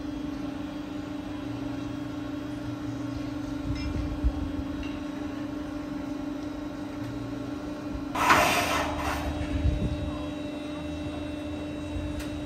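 Steady machine hum on one held pitch from the powered gear of a fairground ride being assembled, with a short loud hiss about eight seconds in.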